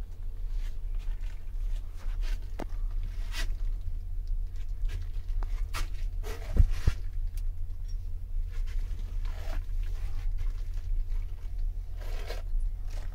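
Cloth curtains rustling and scraping as they are pushed aside by hand, with scattered clicks and a knock a little past halfway, over a steady low rumble.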